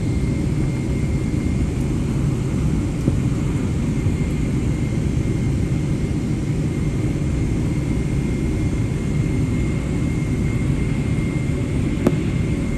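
Jet airliner engines running: a steady low rumble with a thin, steady high whine, unchanged throughout, and a single short click near the end.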